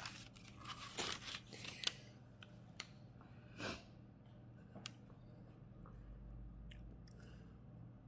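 Faint crinkling and rustling of parchment paper on a baking tray as cookie dough is handled, with several short, sharp crackles in the first half.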